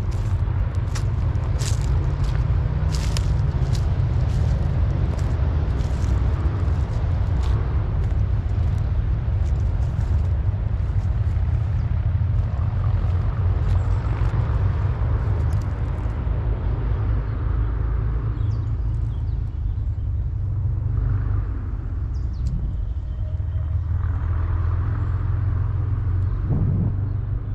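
Steady low rumble, with sharp clicks and ticks scattered through the first several seconds.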